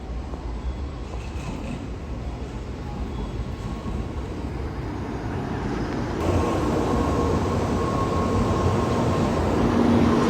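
Shinkansen bullet train approaching, its rail and running noise growing steadily louder, with a sudden step up in loudness about six seconds in.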